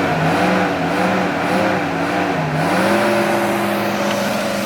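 Off-road 4x4's engine working under load, its revs wavering up and down, then rising and holding steady from about three seconds in.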